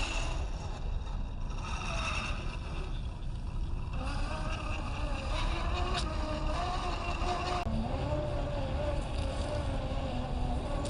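An RC scale crawler's brushless motor and gearbox whining as it drives off-road, the pitch wavering up and down with the throttle, over a rough rumble of tyres and chassis on the terrain. The sound changes abruptly about three quarters of the way through.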